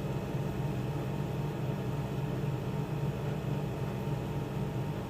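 Steady low hum over a faint even hiss, without change: background machine or room noise such as a fan.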